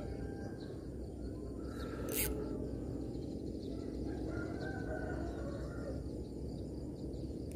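Rural outdoor ambience: a steady low rumble with faint, distant bird calls, and one brief sharp hiss about two seconds in.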